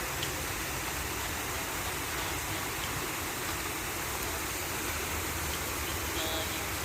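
Flowing water: a steady, even rush.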